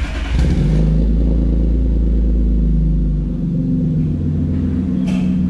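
BMW E39 528i's M52 straight-six running through a TechPro valvetronic exhaust with the valve open: a loud, deep, steady exhaust rumble that eases off slightly about three seconds in.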